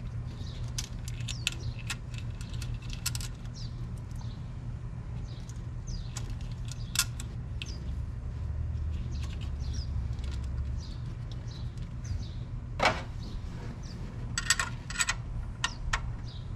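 Scattered small metallic clicks and clinks of a battery-cable lug and nut being handled and fitted onto an alternator's output post, with a few sharper clinks about a third of the way in and near the end. A steady low hum runs underneath.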